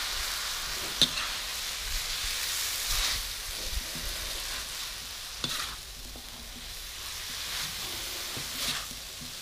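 Rice vermicelli and water mimosa sizzling in a hot steel wok as a metal spatula stirs and turns them. Sharp clicks of the spatula against the wok come about a second in, midway and near the end.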